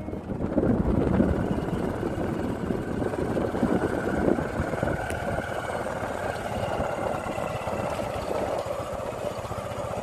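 Motorcycle engine running steadily while riding along a rough gravel road, with constant road rumble.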